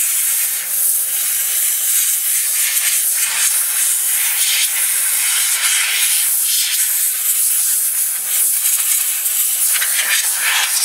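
Steady, loud hiss of a small hand-held air-powered sanding tool taking excess black paint off plywood.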